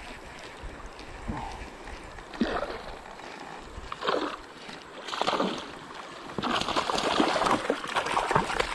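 River water splashing and sloshing against a kayak hull as it drifts, in separate splashes at first and then a louder, steadier rush of water about two-thirds of the way in.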